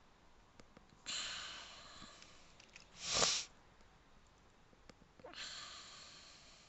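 A person breathing close to a headset microphone: a hissy breath about a second in that fades away, a short, loud sniff about three seconds in, and another fading breath a little past five seconds.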